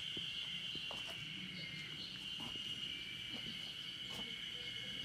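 Insects droning steadily at one high pitch, with soft footsteps on the path about once a second.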